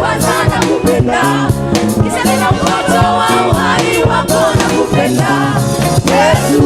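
Gospel worship song: singing over a band with a steady beat and bass line.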